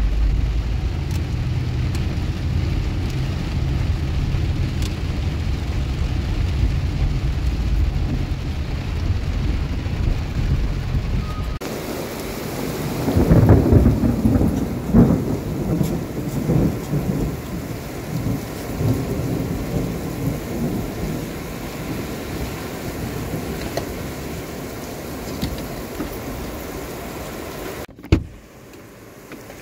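Heavy thunderstorm rain, heard at first from inside a car through the rain-covered windscreen and then in the open. About 13 seconds in, thunder rumbles loudly in rolling waves for several seconds and fades. Near the end a single sharp thump comes, after which the rain sounds duller.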